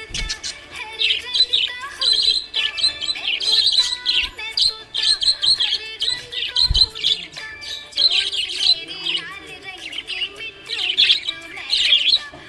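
Small pet parrots chirping and chattering, with quick bursts of high chirps coming every second or so.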